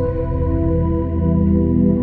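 Ambient background music of long, held tones, with the low notes changing to a new chord right at the start.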